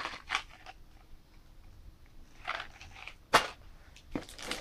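Snack packets being handled inside a cardboard box: a few short crinkles of plastic wrappers and light taps, with one sharp tap a little over three seconds in.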